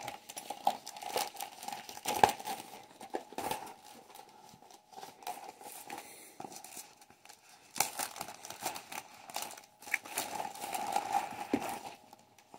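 Clear plastic shrink-wrap being torn and peeled off a cardboard box, crinkling and crackling in irregular spells, sparse in the middle and busiest in the last few seconds.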